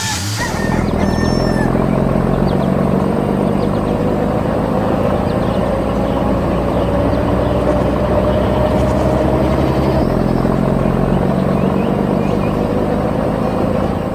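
Heavy vehicle engine running steadily as a low, loud rumble, its pitch creeping up slightly through the middle.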